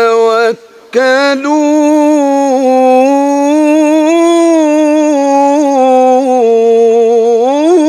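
A man's solo voice in melodic tajweed (mujawwad) Quran recitation, drawing out one long ornamented note with a wavering, trembling pitch. A short breath breaks it about half a second in, and the pitch rises near the end.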